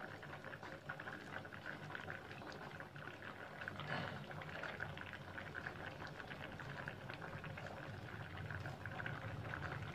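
Water with tamarind simmering in an aluminium pot, a faint steady bubbling and crackle, with a soft plop about four seconds in as a spoonful of paste drops into the liquid.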